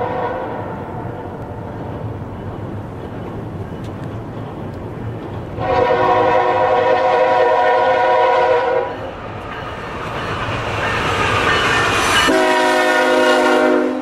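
Air horn of an approaching CN freight train's lead locomotive, a GE ES44DC, sounding a chord: the end of one blast at the start, a long blast about six seconds in, and a shorter blast near the end. The rumble of the oncoming train grows between the blasts.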